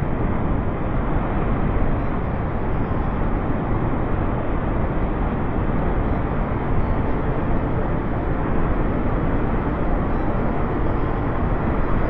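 Large waterfall of the Kaveri River plunging into its gorge: a steady, deep, unbroken rush of falling water.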